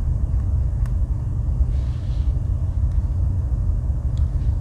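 Steady low rumble of background noise, with a couple of faint clicks.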